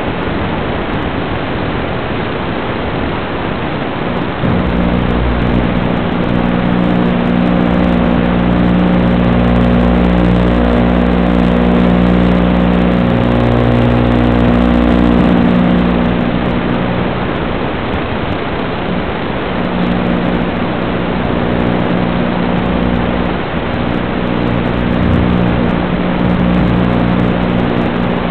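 Loud, steady static hiss with a low buzzing hum from an analog FPV goggle video recorder, which picks up noise from the video link rather than sound from the drone. The buzz grows stronger about four seconds in and eases again near the middle.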